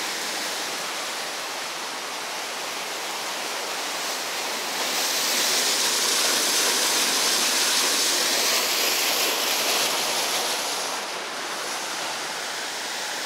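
Water pouring over a small river waterfall: a steady, powerful rush, growing louder and hissier for a few seconds in the middle.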